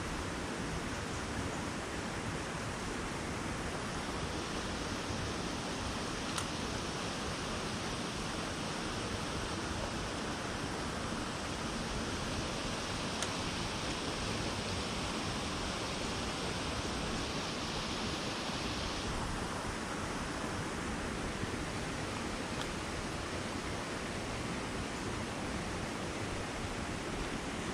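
Steady rushing of a small creek running over rocks. A higher hiss joins a few seconds in and cuts off suddenly about two-thirds through.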